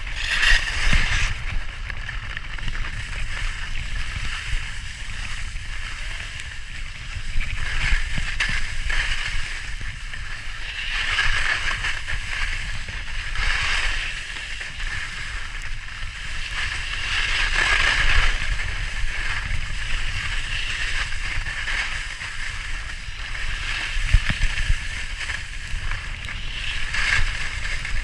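Skibike skis hissing and scraping over packed snow on a fast downhill run, with a low rumble of bumps underneath. The hiss swells and eases every few seconds.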